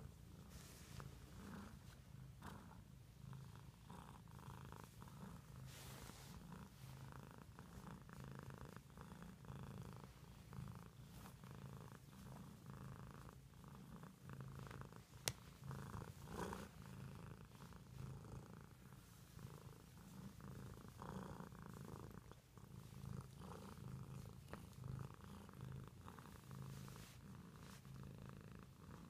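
Domestic cat purring softly and steadily while being stroked on the cheek and chin, with one sharp click about halfway through.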